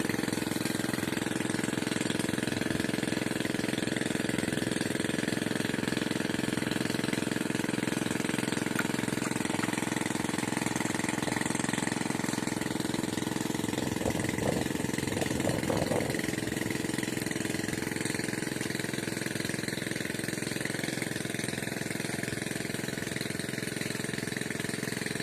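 Engine of a nearby water pump running steadily, a constant mechanical drone. A few short, louder sounds break in between about fourteen and sixteen seconds in.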